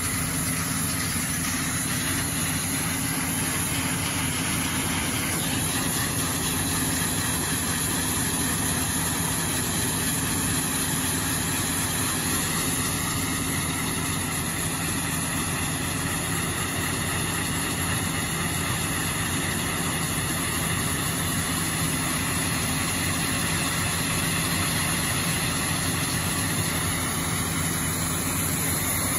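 Excavator engine and hydraulics running steadily while an excavator-mounted disc saw blade spins in a wet cut through rock. The hum and grinding noise are even and unchanging.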